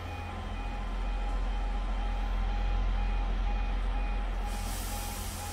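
Evenly repeated electronic warning beeps, about two a second, over the steady low hum of a Class 158 diesel multiple unit's engines. About four and a half seconds in, a hiss of air sets in.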